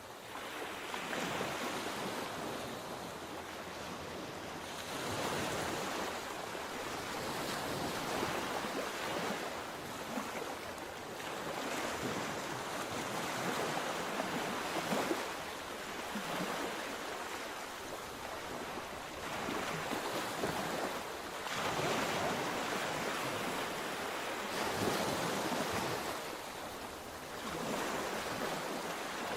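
Sea waves breaking and washing in on the shore, swelling and ebbing in repeated surges every few seconds.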